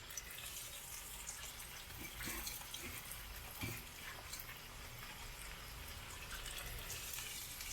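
Meatballs frying in hot oil: a steady sizzling hiss with a few faint pops.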